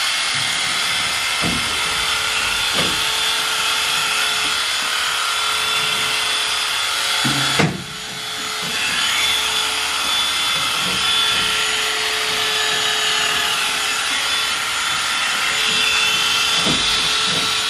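Large electric cattle clippers running with a steady, even buzz while shearing a calf's long, shaggy coat. Near eight seconds in there is a sharp click and the buzz briefly drops in level before settling again.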